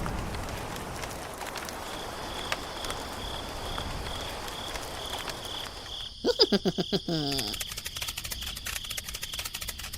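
A cricket chirping steadily over background noise. About six seconds in a rapid burst of clicks with short falling tones cuts in, followed by fast, even ticking.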